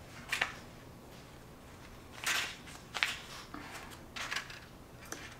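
A hardcover book being handled and opened, with a few short paper rustles and soft taps as its cover and pages are turned.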